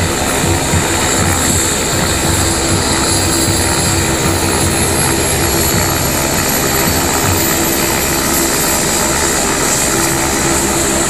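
Helicopter running on the ground ahead of takeoff: a loud, steady turbine whine with rotor noise.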